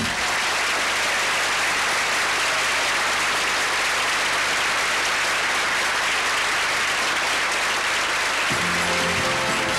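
Audience applauding, a dense steady clatter of clapping; near the end music starts up under it.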